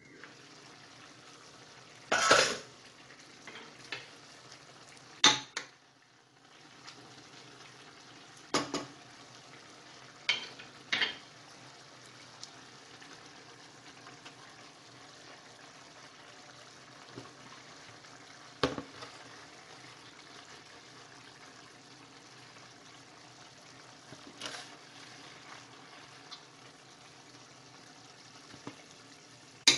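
Chicken pieces simmering in liquid in a stainless steel saucepan, a steady low bubbling, broken by sharp metal-and-glass clinks as the glass lid comes off and metal tongs knock against the pan while the chicken is turned.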